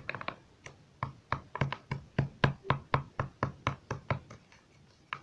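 Quick regular series of sharp knocks, about four a second for some three seconds: a hard utensil striking a container holding the frozen, salted slime mixture.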